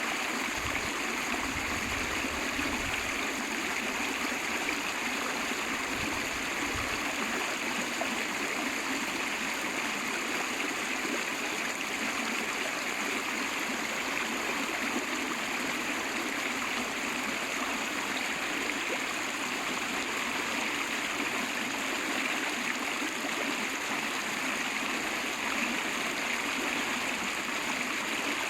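River water flowing, a steady rushing of running water.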